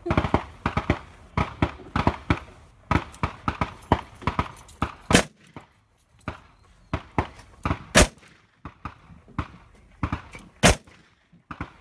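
Three loud revolver shots from a Smith & Wesson revolver, about two and a half seconds apart, over a dense run of quieter gunshots from other lanes of the range.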